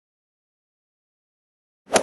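Dead silence, then near the end a loud sound cuts in abruptly.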